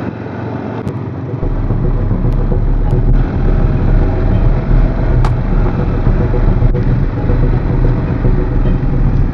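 ATV engine running while the quad is ridden along a rough dirt trail, growing louder and deeper about a second and a half in, with a few light knocks.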